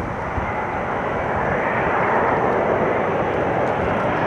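Jet engines of a Boeing 787 airliner on final approach with gear down: a steady rushing noise that grows louder as the plane closes in.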